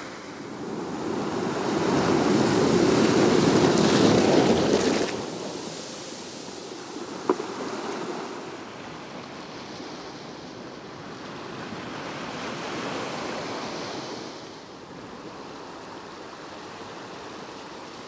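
Small waves breaking and washing over a pebble beach, the sea's hiss swelling loudest early on, easing, and rising again near the end; one short click about seven seconds in.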